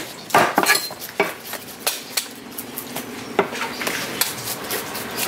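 Large knife cutting a whole skipjack tuna on a wooden chopping block: irregular sharp knocks and clacks of the blade against fish and block, several in the first second and a half and a few more spread through the rest.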